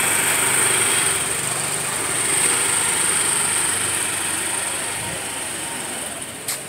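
Motor scooter engine running as the rider pulls away, fading as it moves off about five seconds in. A steady high-pitched whine sits behind it.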